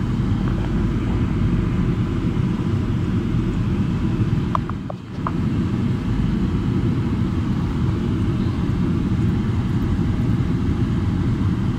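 Steady low rumble of a car driving slowly over a gravel lot, heard from inside the cabin, with a brief lull about five seconds in.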